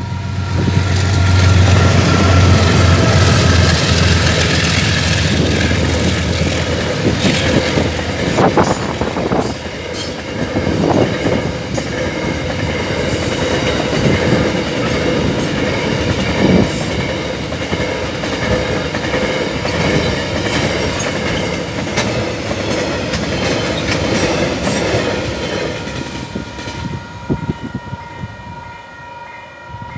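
Freight train of tank wagons passing over a level crossing: a heavy low rumble for the first several seconds, then the wagons' wheels clacking over the rail joints, dying away near the end. The crossing's warning bells ring steadily throughout.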